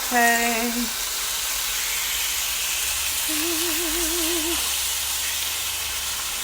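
Salmon fillets searing in hot oil in a skillet: a steady sizzling hiss.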